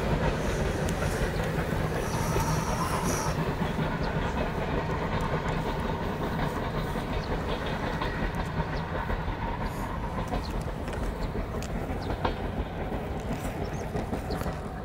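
Passenger train hauled by steam locomotive C57 180 rolling along the track, its wheels clicking over the rail joints, the sound slowly fading.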